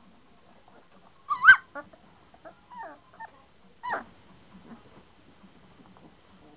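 Three-week-old St. Bernard puppies yelping and whimpering: a loud, high yelp that rises in pitch about a second and a half in, a few short squeaks after it, and another yelp falling in pitch near four seconds.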